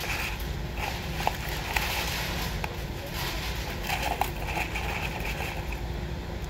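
Paper fry cartons and fries being handled, with a few light clicks and soft rustles, over a steady low hum.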